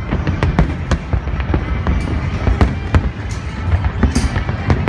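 Fireworks display: a dense run of sharp bangs, several a second, over a continuous low rumble of bursting shells, with a crackling burst about four seconds in.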